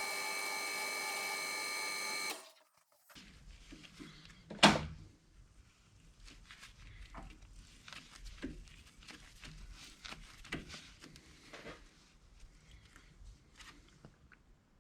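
Steady electrical hum that cuts off abruptly after about two seconds, then one sharp knock and faint, scattered clicks and taps of small metal workshop parts being handled.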